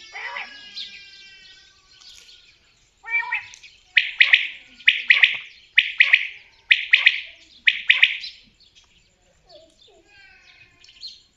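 Common quail calling: a series of five loud, sharp, rapid calls about a second apart, after softer bird calls that slide down in pitch at the start.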